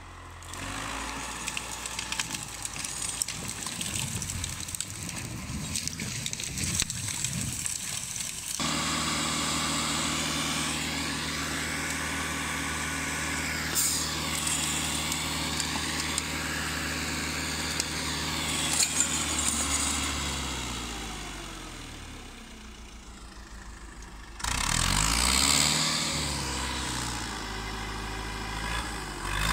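LKT 80 forestry skidder's diesel engine running, its pitch rising and falling as it is revved under work. The sound changes abruptly about nine and twenty-four seconds in.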